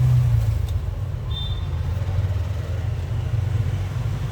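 A steady low rumble, with a faint tick just under a second in and a brief high tone around a second and a half in.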